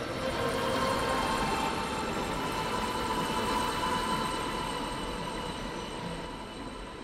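Steady hum and rumble of factory machinery, with a few held tones over it.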